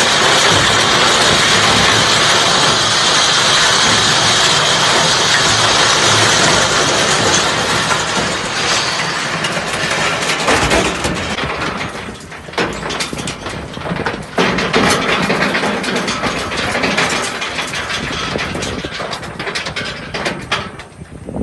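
Tractor-drawn Kivi-Pekka stone picker at work in a stony field: a dense mechanical clatter and rattle of stones being raked into the machine, over the tractor engine. About halfway through it turns quieter and more uneven, with sharp knocks and a drop in level.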